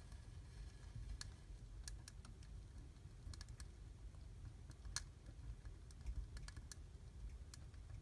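Burning Christmas-tree branches crackling in a fireplace fire: irregular sharp pops, the loudest about five seconds in, over a low steady rumble of flames.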